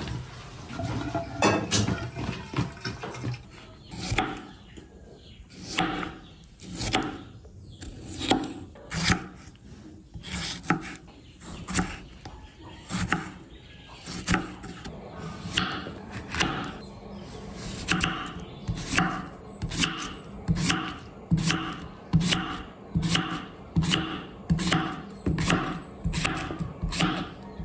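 Chef's knife slicing tomatoes and a cucumber on a wooden chopping board: a run of cutting strokes, each ending in a crisp tap of the blade on the board. The strokes come about once a second at first, then quicken to a faster, even rhythm in the second half.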